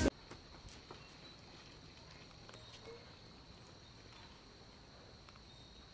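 Faint ambience of insects droning steadily at a high pitch, with a few soft ticks.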